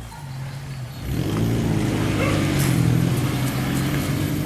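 Toyota Kijang pickup's engine revving under load as it drives up a steep dirt track, getting louder about a second in and then holding at high revs.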